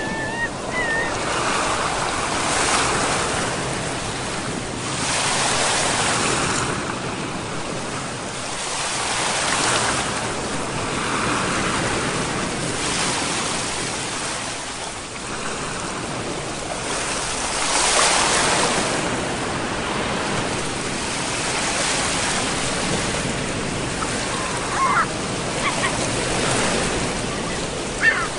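Sea surf: waves breaking in an even wash that swells and eases every few seconds.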